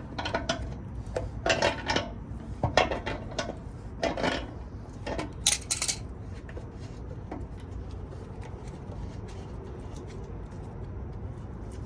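Metal clinking and scraping as a tool works a threaded quick-connect air fitting loose. There are several ringing clinks over the first six seconds, then only light ticks over a steady low hum.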